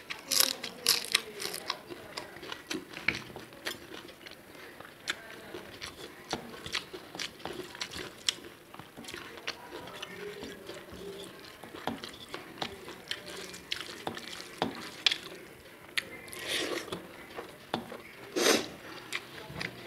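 Close-miked eating sounds: crisp papad (poppadom) crunching between the teeth, then wet chewing and smacking of rice and dal, with scattered sharp clicks and a few louder crunchy bursts near the end.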